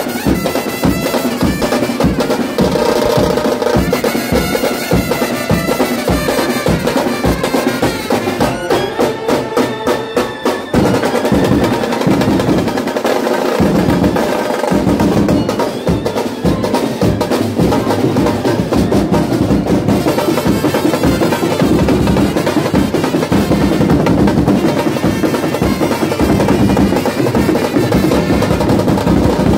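Loud music: rapid, driving drumming under a melody on a wind instrument, with the drumming dropping out briefly near the middle.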